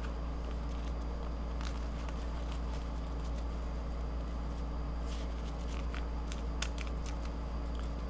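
Steady low hum, with a few faint rustles and clicks as a leather wallet is opened and handled.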